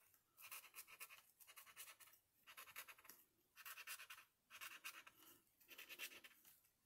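Faint scratching of a marker pen's nib on a paper craft tag, in about seven short strokes, each under a second, as small hand-drawn marks are put in.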